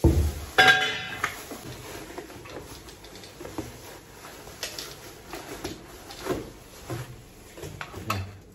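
Plastic packaging rustling, loudest in the first second or so, then scattered clicks and knocks as office chair parts are unpacked and handled, over quiet background music.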